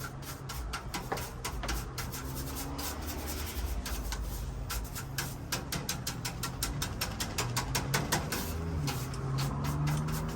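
A small brush scrubbing in rapid, repeated strokes over a dust-caked fan cage.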